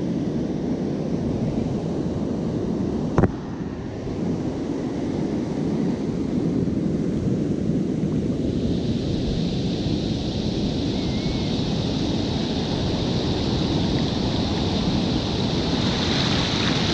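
Ocean surf breaking and washing up the beach, with wind rumbling on the microphone. There is a single sharp click about three seconds in. From about halfway through, a brighter hiss of foam washing across the sand comes in.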